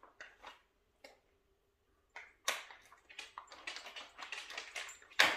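Cardboard Christmas calendar being handled and opened: a few light clicks, then a run of crackling and scratching cardboard, ending in a sharp snap just before the end.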